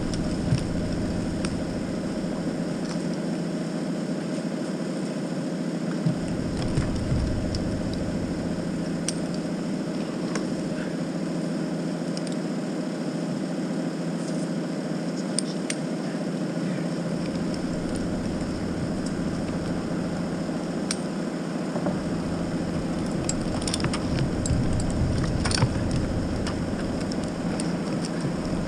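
Heavy engine running steadily at a constant speed, with a few faint clicks and knocks over it.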